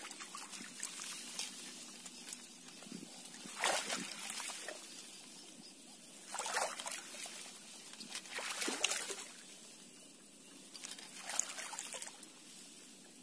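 Tall grass and reed stems rustling and brushing against a person pushing through them on foot, with several louder swishes a few seconds apart.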